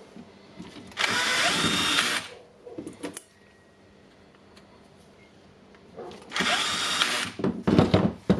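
DeWalt DCD780 cordless drill's brushed motor run twice in bursts of about a second each, whining up to speed and stopping, then a few sharp knocks near the end. A test run of the repaired drill.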